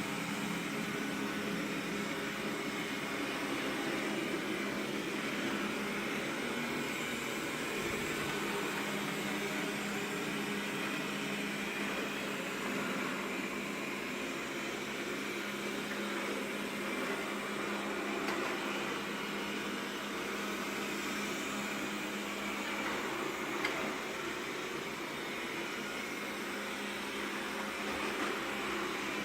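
Xiaomi Mi robot vacuum cleaner running, a steady motor and fan hum with a low steady tone, and a single small click about two-thirds of the way through.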